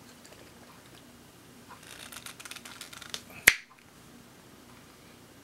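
Twist-off cap being unscrewed from a glass bottle: a run of faint clicks and crackles as it turns, then one sharp click about three and a half seconds in as the cap comes free.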